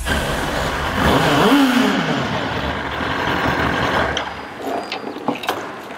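Sport motorcycle engine running and revved once about a second in, its pitch rising and falling, then shut off about four and a half seconds in. A few short clicks follow.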